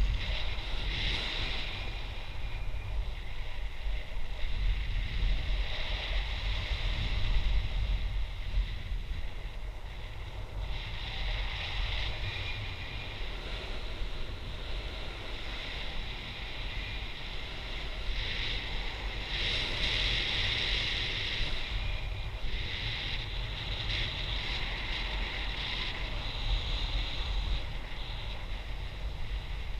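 Airflow of paraglider flight buffeting the camera's microphone: a steady low rumble with a hiss that swells and fades every few seconds.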